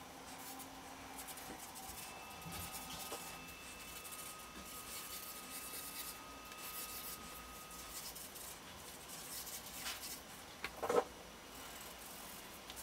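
Red felt-tip marker scratching across paper in quick strokes as lines are sketched. There is a brief louder knock about eleven seconds in.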